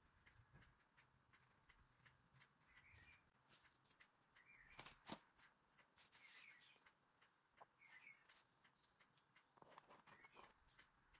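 Near silence: faint taps and clicks of a plastic ruler and a marker on a paper notebook page, the sharpest about halfway through, with a faint bird chirping every second or two in the background.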